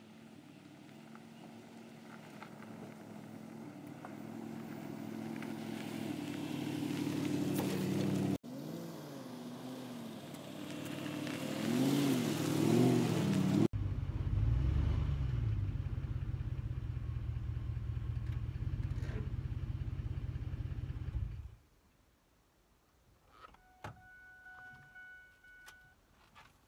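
A vehicle engine heard in separate clips: it builds up, then revs up and down, then runs as a steady low drone that cuts off about 21 seconds in. A few clicks and a brief steady tone follow near the end.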